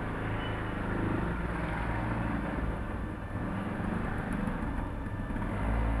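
A steady low motor hum that swells into a stronger low rumble near the end.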